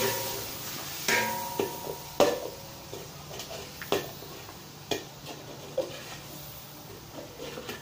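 Metal spatula knocking and scraping against a large aluminium wok as a bubbling chilli and soy sauce mixture is stirred. There are several ringing knocks, about one a second, over a low steady sizzle.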